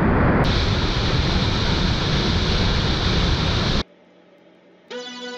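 Loud steady rush of whitewater below a waterfall, heard at a kayaker's helmet camera, that cuts off abruptly after about three and a half seconds. After a short lull, guitar music begins near the end.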